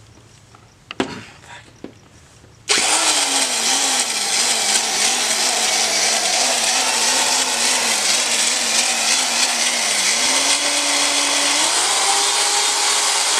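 A corded handheld power tool switches on about three seconds in and runs continuously. It makes a loud rushing noise over a motor hum that wavers in pitch and steps up near the end.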